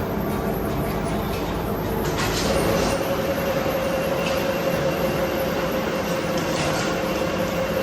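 Workshop machine tool running with a steady mechanical rumble; a steady metallic whine sets in about two and a half seconds in and holds.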